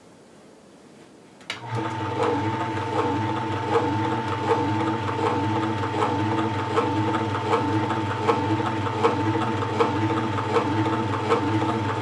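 Omega CNC80S compact horizontal single-auger slow juicer switched on with a click about a second and a half in, then running empty with a steady motor hum, a high whine and faint regular ticking.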